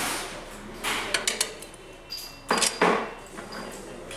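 Socket wrench on a long extension bar tightening the cylinder-head nuts of an air-cooled single-cylinder engine: metal clicks and clinks, a quick run of clicks about a second in and a louder metallic clatter around two and a half seconds in.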